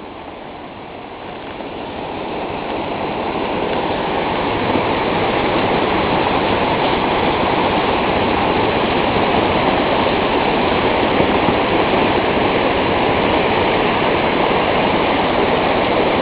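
Rushing water of a mountain stream, a steady rush that grows louder over the first four seconds or so and then holds.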